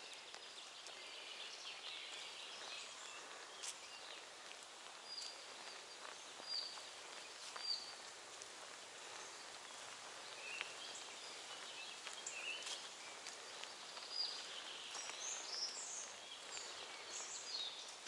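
Songbirds singing in a forest: many short, high chirps and whistled notes, some repeated, over a steady background hiss, with a few faint clicks.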